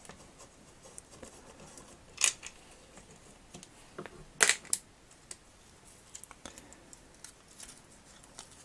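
Light clicks and knocks from a small screwdriver and the opened plastic case and circuit board of a toy sword being handled: one sharp click about two seconds in, then a quick cluster of three or four more around four to five seconds in.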